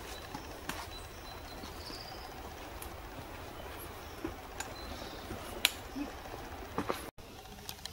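Footsteps on a rocky forest trail with scattered sharp clicks and taps of boots and a trekking pole, over a steady outdoor background with faint high bird calls. The sound cuts out briefly near the end.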